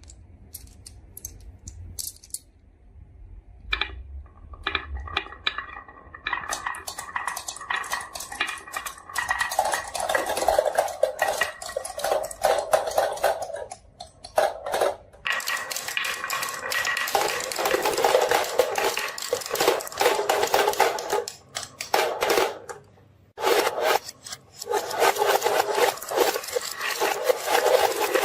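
Marbles rolling and clattering down a wooden marble run. A few separate clicks come first, then a dense run of rapid clicks and rattles, broken by two short lulls.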